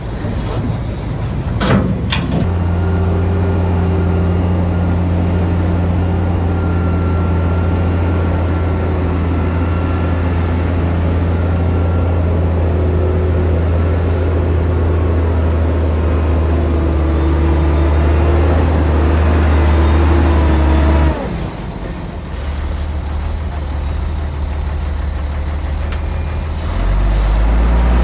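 Heavy diesel engine of earthmoving machinery running hard with a steady low drone, then dropping back suddenly about three quarters of the way through and pulling up again near the end. A single sharp knock comes about two seconds in.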